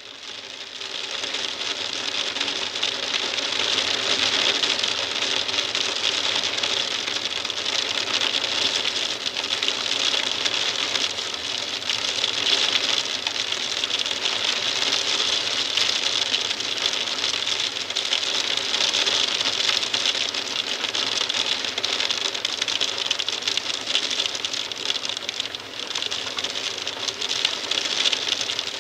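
Hail tapping on a glass windowpane, heard from inside the room: a dense, steady rattle of small hits on the glass that fades in over the first couple of seconds.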